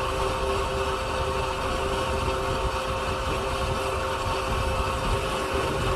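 Vehicle engine idling steadily, with a low rumble and a constant hum.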